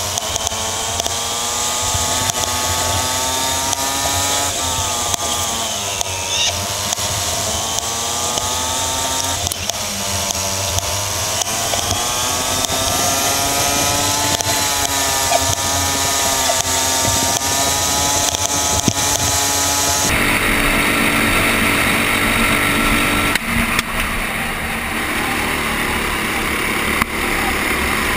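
Go-kart engine heard from on board the kart, its pitch falling and rising as the throttle is lifted for corners and opened again on exits. About two-thirds of the way through the sound changes abruptly to a steadier, noisier engine drone.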